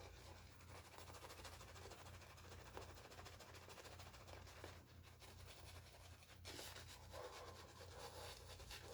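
Faint, rapid soft scrubbing of a high-density shaving brush working lather on a face, pausing briefly a couple of times.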